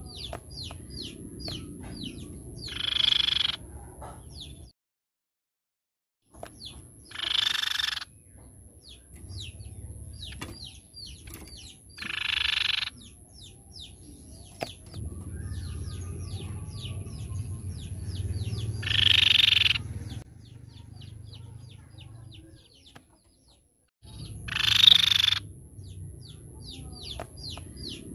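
White-bibbed babbler (tepus pipi perak) calling: a fast run of short, falling notes, about four a second, broken every five or six seconds by a louder, harsh call about a second long. The sound cuts out completely twice for a second or so.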